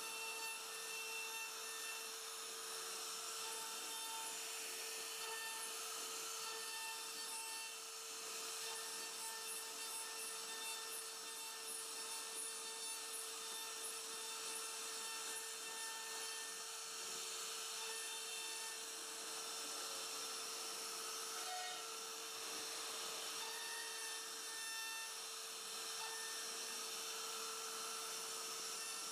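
CNC router spindle cutting a carved relief into a wooden panel: an even hiss of the bit chipping wood over a steady machine tone.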